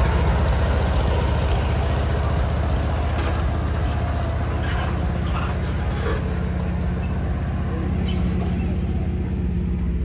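Farm tractor engine running steadily, hauling a hay-ride wagon.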